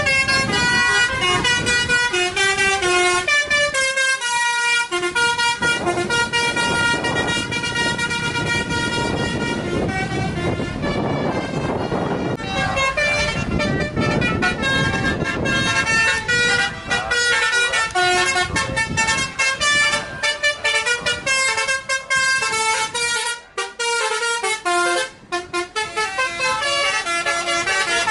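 Indonesian bus 'telolet basuri' musical horn playing a tune of short notes that jump quickly from pitch to pitch, over a noisy din that is heaviest in the middle; it breaks off briefly twice near the end.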